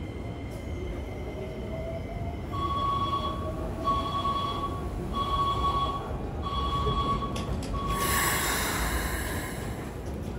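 Station platform departure warning for a Keikyu train: a single-pitched electronic beep repeats five times, evenly spaced, as the train prepares to leave. It is followed by a short hiss of air, with faint train machinery and platform noise underneath.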